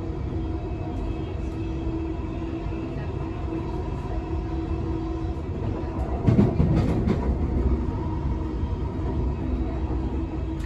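Interior of a Queensland Rail electric suburban train running at speed: a steady low rumble of wheels on rail with a thin steady hum over it. About six seconds in, a louder stretch of rattling and knocking lasts a second or so.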